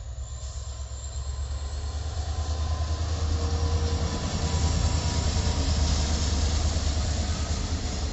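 Indian Railways WDG4D diesel-electric locomotive, whose EMD 16-710 two-stroke V16 gives a deep engine hum, passing with a freight train. The hum grows louder to a peak about midway as the locomotive draws level, then the rolling noise of the wagons follows.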